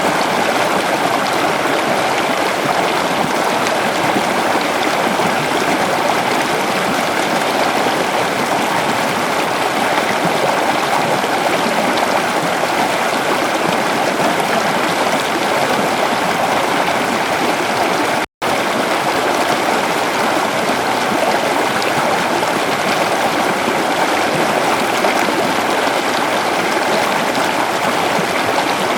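Waterfall: a steady rush of falling water, even and unbroken. It cuts out completely for an instant about eighteen seconds in.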